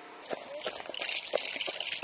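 Rushing water with scattered crackles and knocks, coming in a fraction of a second in and growing much louder about a second in.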